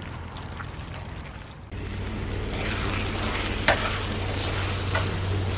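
Spaghetti in tomato sauce sizzling in a hot pan as it is tossed with chopsticks, which click against the pan a few times. The sizzle grows louder about two seconds in, over a steady low hum.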